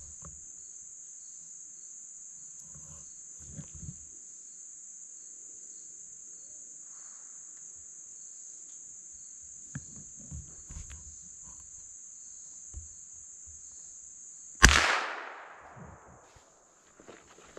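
Insects droning steadily at a high pitch, with faint rustling. Near the end a single loud gunshot cracks out and dies away over a second or so, a shot taken while squirrel hunting.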